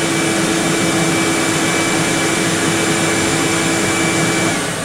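Table saw running without a cut: a steady motor whine over a wide hiss. The whine stops abruptly shortly before the end and the noise drops.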